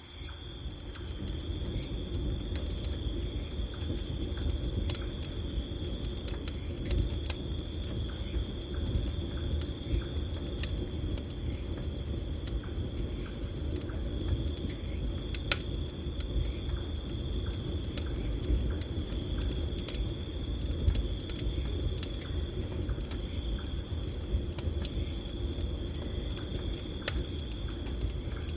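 Wood campfire burning with a steady low rush of flame and scattered sharp crackles and pops, a louder pop about fifteen seconds in, while crickets sing continuously.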